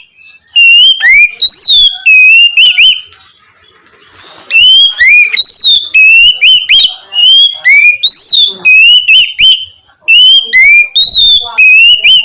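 Oriental magpie-robin (kacer) singing loud, clear whistled notes in quick rising and falling phrases, the open ringing 'ngeplong' song. The song breaks off for about a second and a half a few seconds in, then resumes.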